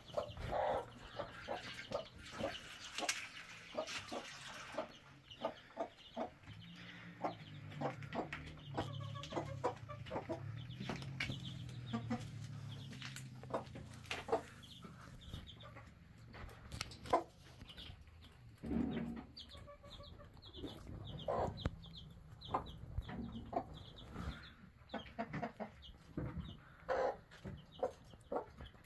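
Hen clucking softly while her small chicks peep in short, high, repeated calls, among many light taps and knocks.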